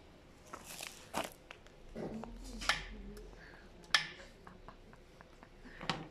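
A handful of sharp taps and knocks, scattered irregularly, as a tabby cat paws at a bead on a string over hollow white plastic containers.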